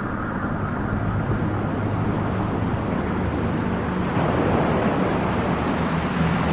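Steady rushing white noise of a personal white noise machine for sound masking, with low held tones underneath that change pitch a couple of times.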